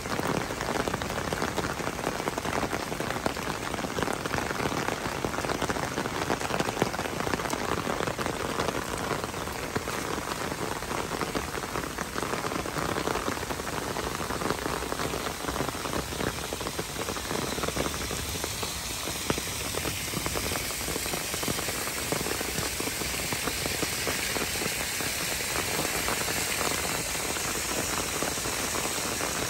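Steady rain falling on wet brick paving and shrubs: an even hiss made of many small drop impacts.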